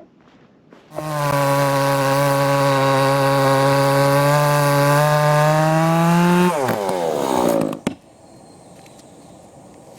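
Chainsaw engine running at high revs for about five seconds, its pitch creeping up slightly. The throttle is then let off and the pitch falls away quickly before the sound cuts off.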